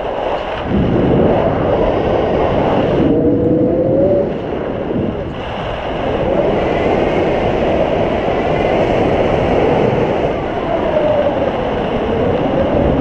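Wind rushing over the microphone of a camera carried on a tandem paraglider in flight, a loud steady roar, easing briefly about three seconds in, with a faint whistle that slides up and down now and then.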